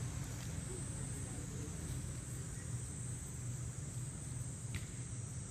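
Steady high-pitched insect chirring over a low rumble, with one brief click near the end.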